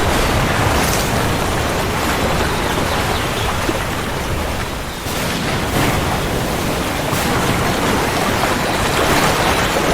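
Steady heavy rain, a dense hiss, over a low continuous rumble of thunder, easing briefly about five seconds in.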